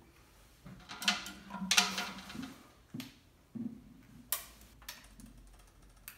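Compound bow and arrow being handled as an arrow is readied for the next shot: a run of light rattles and clatter in the first couple of seconds, then scattered knocks and sharp clicks.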